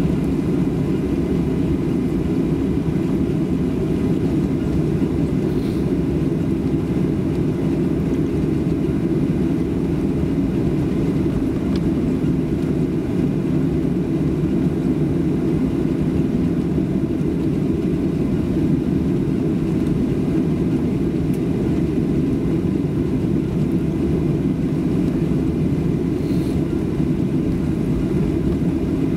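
Steady cabin rumble inside a Boeing 737-700 airliner taxiing on the ground, its CFM56 turbofan engines running at low taxi power, heard from a rear seat behind the wing. Faint steady tones sit over the rumble.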